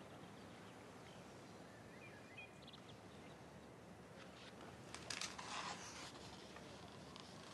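Near silence: quiet room tone, with a brief soft rustle about five seconds in.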